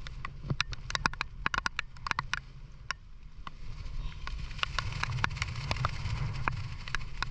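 Irregular sharp taps and clicks, thickest in the first few seconds, with a steady hiss building from about four seconds in over a low rumble.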